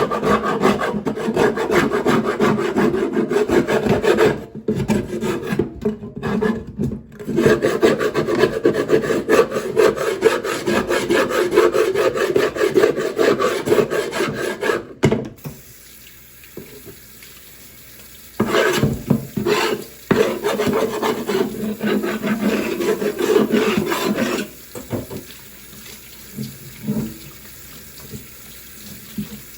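Coarse salt being scrubbed over a wooden chopping board with a cut lime, a fast steady rasping rub. It stops about halfway through, then a second shorter bout of scrubbing follows a few seconds later before it goes quieter.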